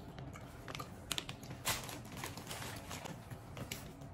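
Faint, irregular small clicks and crinkles of a plastic candy bag being handled.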